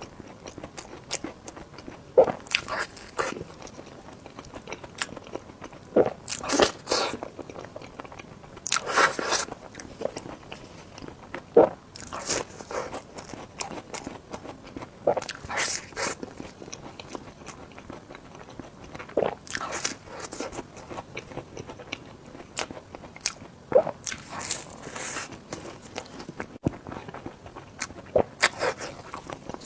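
Close-miked eating: irregular bites and wet chewing noises every second or two as someone eats mochi and sandwiches.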